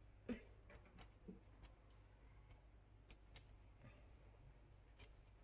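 Faint, scattered light clicks and taps of the metal rotisserie spit rod and its forks being handled and refitted, over near silence.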